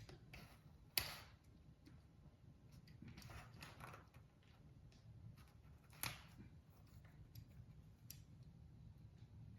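Faint handling noises from hand work: a sharp click about a second in, scraping and rustling around three to four seconds, and another click about six seconds in, over a low hum.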